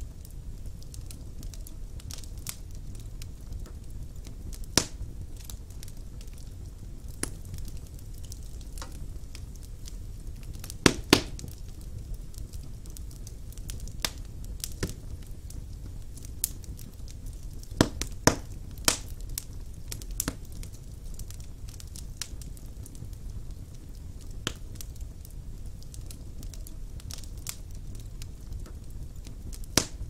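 Split wood logs burning in a fireplace: a steady low rumble of flames with scattered sharp pops and crackles. The loudest are a quick double pop about a third of the way in and a cluster of pops a little past the middle.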